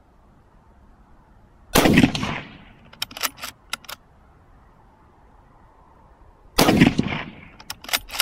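Surplus 7.62x54R Mosin Nagant rifle without a muzzle brake, fired twice about five seconds apart, each shot with a short echoing tail. About a second after each shot the bolt is worked, a quick series of sharp metallic clacks.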